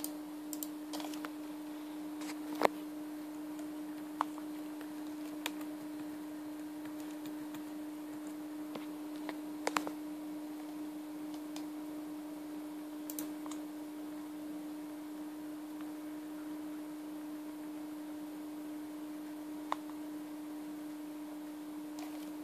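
Scattered key presses and button clicks on an ASUS Eee PC 900 netbook's keyboard and touchpad, a few at a time with pauses between, as a Wi-Fi password is typed in and confirmed. A steady low hum runs underneath.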